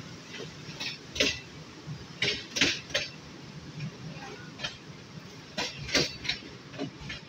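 Sharp clinks and rattles at irregular intervals, about a dozen, over a steady low rumble inside a moving train carriage.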